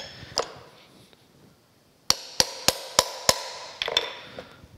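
A run of five sharp metal taps about a third of a second apart, each with a brief ring, then a few lighter clicks: the iron and brass parts of an antique metal planer's feed linkage being tapped and knocked into line.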